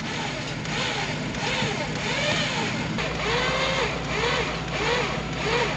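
Vehicle engines running under a winch pull on a stuck camper van, with a repeating squeak that rises and falls about twice a second. About three seconds in, the low hum grows stronger and a steady whine joins it, as the winch takes up the load.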